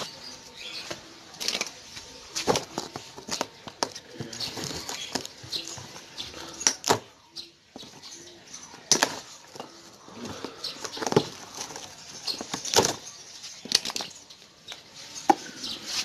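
Irregular clicks, knocks and rustles of a cardboard compressor box and tools being handled, as the plastic strapping around the box is cut with pliers.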